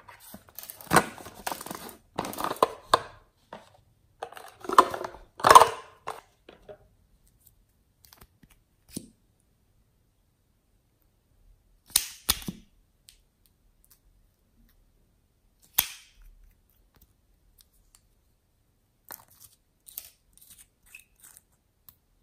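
Small plastic bottles and applicators handled and dabbed into glossy slime: bursts of crackly clicks and sticky pops, densest over the first six seconds, then short bursts twice and a softer scatter near the end.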